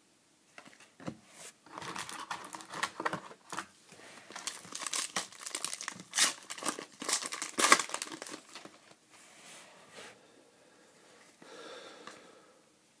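Foil wrapper of a trading card pack being torn open and crinkled, a dense crackling for several seconds. It is followed by fainter rustling as the cards are handled.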